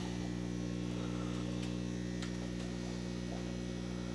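Aquarium pump humming steadily with an even electrical drone, with a few faint ticks in the middle.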